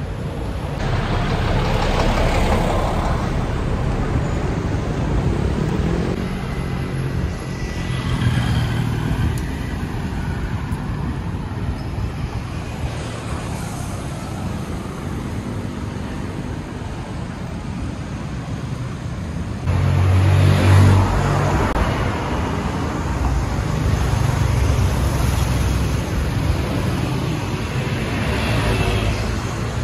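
A boat engine running steadily, with noise of rushing air and water, getting louder about twenty seconds in.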